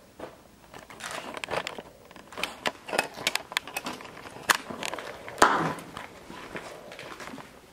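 Footsteps crunching and scraping over fallen plaster and debris on a floor: irregular sharp cracks, the loudest about five and a half seconds in.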